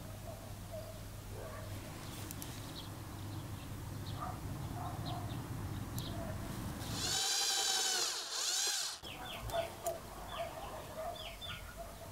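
A small handheld power tool, a pen-shaped electric tool applied to the thin can-metal lure blade, whines for about two seconds, its pitch dipping and rising as it stops. Birds chirp in the background around it.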